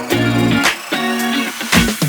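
Background music: a track with guitar and a steady drum beat.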